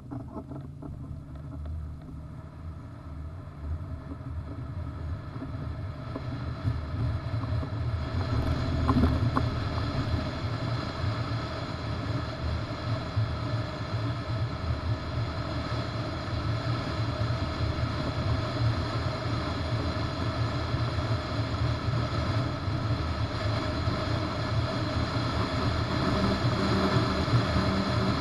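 Wind rushing over the microphone with road and trailer noise as a bass boat is towed behind a pickup, building up over the first several seconds as the rig gathers speed, then holding steady.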